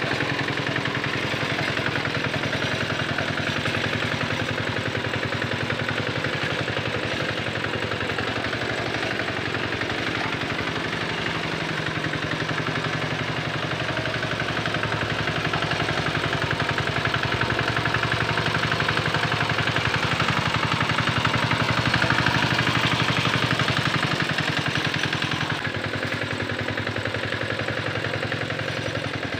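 A Quick Capung Metal hand tractor's small engine running steadily with a rapid, even chugging while it pulls a harrow through a muddy rice paddy. It grows a little louder past the middle and drops back suddenly near the end.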